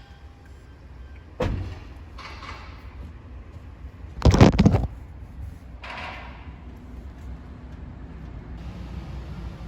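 Suzuki Every van with a low steady rumble underneath, a sharp knock about a second and a half in, then a loud half-second clatter, and a shorter scraping sound about a second later.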